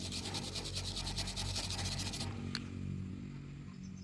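Stick-welding arc crackling steadily, then cutting off about two seconds in, followed by a single click, with a low electrical hum underneath.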